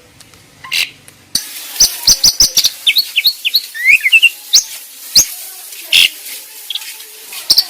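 Starling or myna song: after a quiet first second, a rapid run of sharp clicks and short whistled notes, some rising in pitch, then louder calls spaced further apart.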